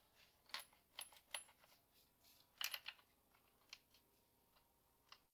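Scattered light clicks and taps of the plastic air intake duct being handled and pressed into place, about half a dozen sharp ticks with a small cluster a little before the middle, otherwise near silence.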